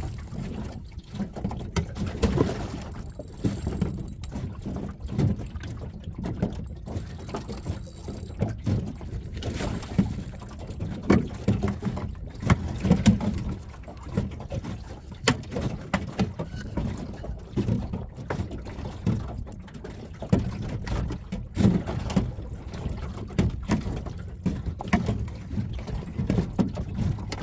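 Water slapping against the hull of a small boat, with irregular knocks and thumps over a constant low rumble.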